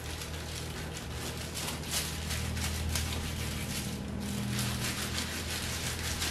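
Knife cutting through a raw salmon fillet on a cutting board, a run of soft slicing scrapes with rustling of the plastic the fish lies on, over a steady low hum.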